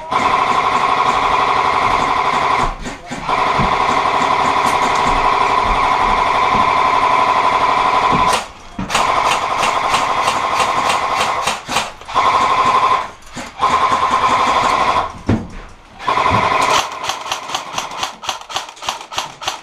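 Airsoft electric gun firing long full-auto bursts, each several seconds long, its motor and gearbox whining steadily over the rapid cycling, with short pauses between bursts. Near the end the firing breaks into quick short bursts and single shots.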